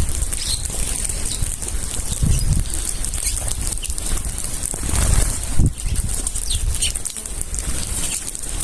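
A flock of birds flapping their wings while feeding, with a few short, scattered chirps and irregular low thumps over a steady hiss.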